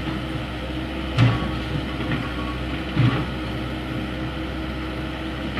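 Excavator's diesel engine running steadily under load while it demolishes a concrete house, with two loud knocks, about a second in and again near three seconds in.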